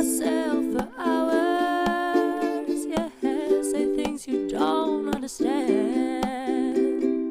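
Ukulele strummed in steady chords while a singer carries the melody over it in a raspy voice, hoarse from being sick, holding some notes with vibrato.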